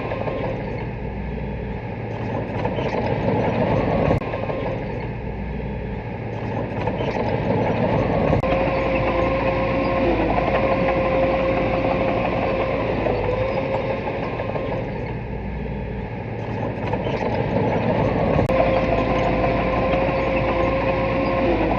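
Small bulldozer's diesel engine running under varying load, its level swelling and easing over several seconds. A steady whine comes and goes with it, and there are a few sharp clicks or knocks.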